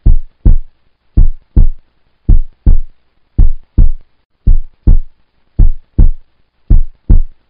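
Heartbeat-style countdown sound effect: loud double thumps, about one pair a second, ticking off the seconds of a quiz answer timer.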